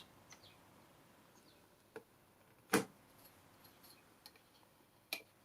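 A few light clicks and knocks from handling the small plastic multimeter while it is measured: a faint tap about two seconds in, a sharper click a little before the three-second mark, and another near the end.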